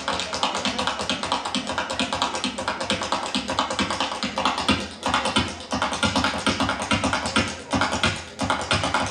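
Flamenco music carried by fast, dense percussive taps and clicks, several a second.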